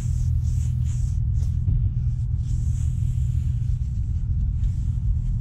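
A steady low rumble, with soft hissing swishes of a rag wiping the aircraft's door frame coming and going over it.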